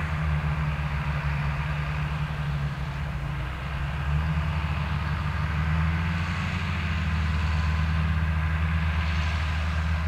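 John Deere 8210T tracked tractor's six-cylinder diesel engine running steadily under load while pulling a plough through soft, waterlogged soil. It is a deep, even drone that dips slightly a few seconds in and then swells again.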